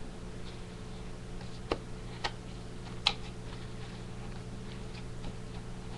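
A few short clicks and taps from a hard glasses case being handled while it is shut, about three in the first half, over a steady low hum.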